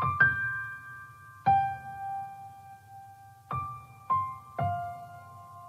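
Slow, sparse piano music: single notes struck about every one to two seconds, each left to ring and fade.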